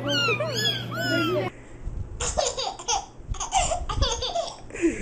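A kitten mewing several times in quick succession, each cry sliding down in pitch. About a second and a half in, it gives way to a baby laughing in a run of short laughs.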